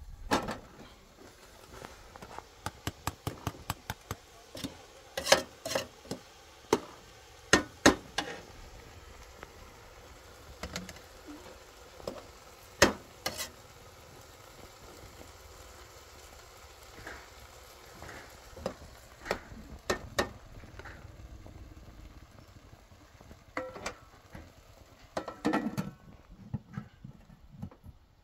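Metal ladle and cooking pot clinking and scraping as rice is put into a pot on a gas stove and stirred: irregular sharp clinks, thickest in the first eight seconds, with scattered knocks later on.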